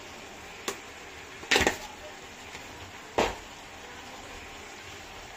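A metal spoon knocking against steel cookware: a faint tick, then a short clatter about a second and a half in and a sharp knock about three seconds in, over a low steady hiss.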